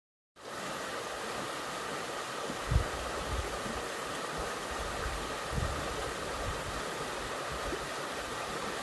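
Steady rushing of water, cutting in just after the start, with a few low thumps about a third of the way in and again past the middle.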